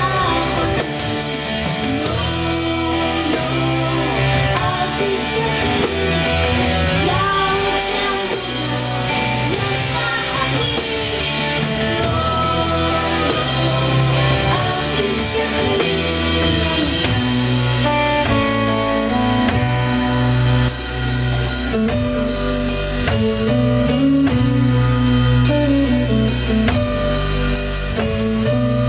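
Live band playing with electric guitar, bass and drum kit keeping a steady beat.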